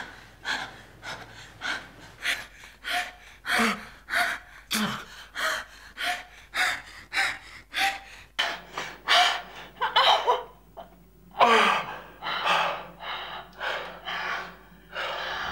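Heavy breathing and gasping from a couple in an intimate embrace, about two breaths a second, a few of them voiced. The gasps are loudest around ten to twelve seconds in.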